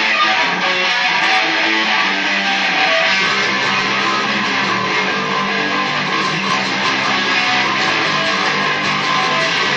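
Noise rock band playing live: electric guitar and bass guitar in a dense, steady wall of sound with long held notes.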